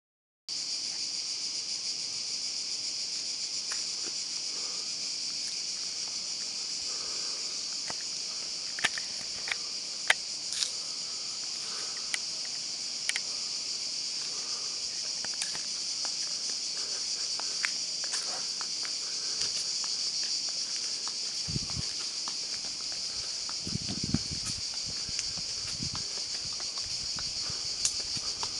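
A dense, steady, high-pitched chorus of cicadas, with a few sharp clicks in the middle and footsteps in the last several seconds.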